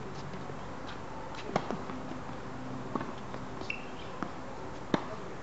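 Tennis ball struck by rackets and bouncing on a hard court: a handful of sharp pops spaced a second or two apart, the loudest about a second and a half in and near the end.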